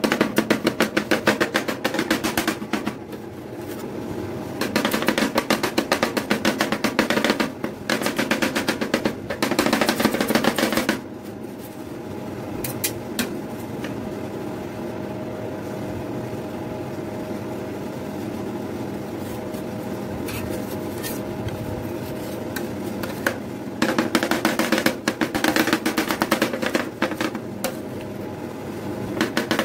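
Two steel spatulas chopping fast on a frozen metal ice-cream-roll plate, cutting biscuit into the ice cream base: a rapid metallic clatter like a drum roll. It comes in long bouts at the start, from about 5 to 11 seconds and again from about 24 seconds, with a steady hum in the quieter stretch between, while the mix is spread flat.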